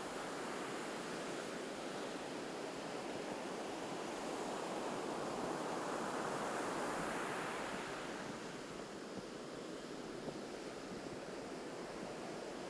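Small surf breaking and washing up a beach, one wave's wash swelling over a few seconds about halfway through and then easing off.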